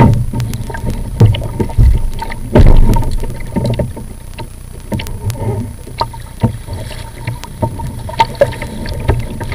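Plastic sit-on-top kayak under way on choppy sea: water slapping and splashing against the hull and paddle blades dipping, with several heavy low thumps against the hull in the first three seconds. Wind buffets the microphone throughout.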